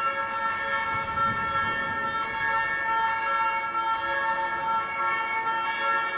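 Ambulance siren sounding one steady, unbroken tone made of several pitches at once, with a low rumble beneath.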